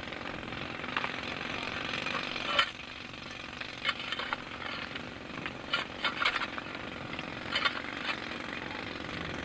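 Pneumatic rock drill (jackhammer) running steadily with a fast rattle, with several sharp knocks over it.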